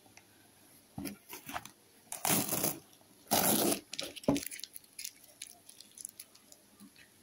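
Corrugated cardboard box being handled, its flaps scraping and rubbing as they are pressed and folded shut. It comes in a few short bursts, the two loudest in the middle, followed by a sharp tap and some light ticks of fingers on the cardboard.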